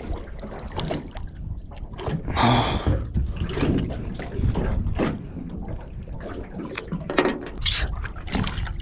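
Seawater splashing and dribbling as a small squid is hauled up out of the water on a jig line and handled beside the boat, with a brief splashy burst about two and a half seconds in and scattered knocks and clicks of handling near the end.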